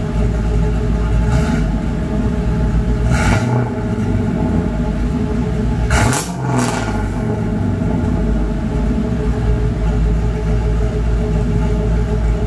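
1986 Camaro IROC-Z V8 running through headers, 3-inch pipe and a single Gibson MWA race muffler, with a steady deep exhaust rumble at idle. A few short throttle blips come around the middle.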